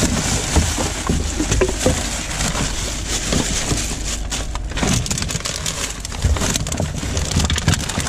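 Gloved hands rummaging through rubbish in a plastic wheelie bin: plastic bottles, drink cans, plastic bags and paper crinkling, rustling and knocking together in a continuous crackle.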